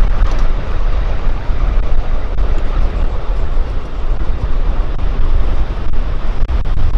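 Ride-on miniature train rolling along its track: a steady low rumble mixed with wind buffeting the microphone as the train moves.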